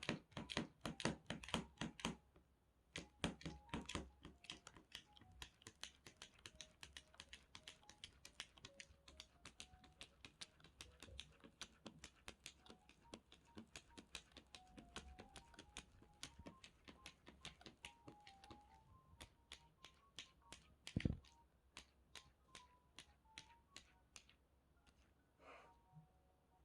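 A cat's paws tapping and patting quickly and repeatedly, several light taps a second, loudest in the first couple of seconds, with one heavier knock near the end. Faint background music with a simple melody runs underneath.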